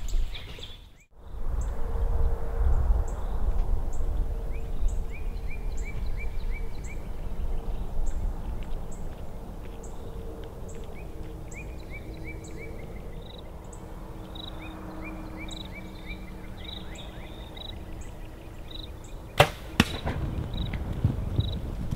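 Compound bow shot at a feral hog: two sharp cracks less than half a second apart near the end, after which the hogs bolt through the grass. Before the shot, birds chirp repeatedly over a low rumble.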